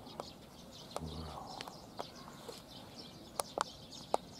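Small birds chirping, with a few sharp clicks scattered through, mostly in the second half.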